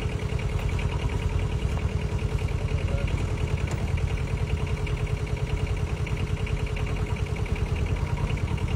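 A mini excavator's diesel engine idling steadily, with a rapid, even chugging beat.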